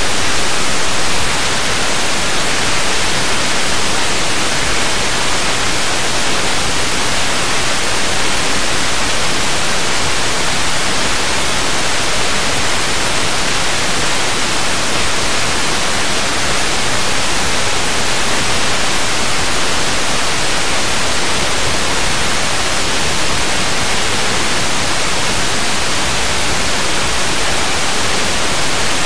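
Smartphone FM radio tuned to 97.1 MHz giving only steady, loud static hiss, with no station's voice or music coming through: the distant station is not being received.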